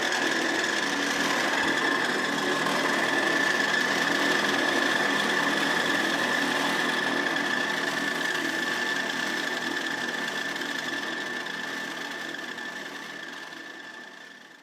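Wood lathe running while a turning tool cuts the spinning wood: a steady noisy scraping with a constant whine, fading out over the last few seconds.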